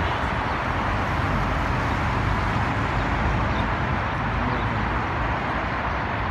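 Steady noise of cars passing on a multi-lane city highway.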